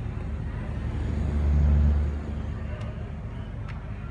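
Mitsubishi axial ceiling exhaust fan running with a steady low hum and air rush. About a second in, a louder low rumble swells and then fades again.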